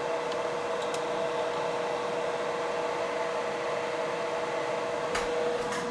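Steady machine hum with a constant mid-pitched tone running through it, and two faint clicks near the end.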